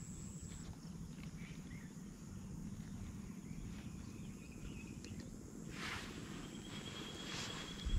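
Outdoor ambience: a steady high-pitched insect tone that stops within the first second, a few short chirps, and a brief rustle about six seconds in over a low background rumble.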